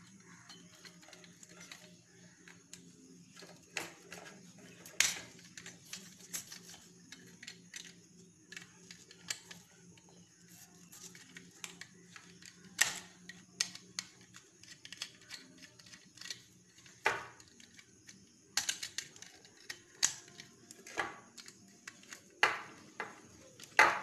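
A small screwdriver working the brass terminal screws of a plastic switch-socket board: irregular metal-on-metal clicks and scrapes as the screws are turned and tightened on the wires, with the board handled in between and a few sharper clicks among them.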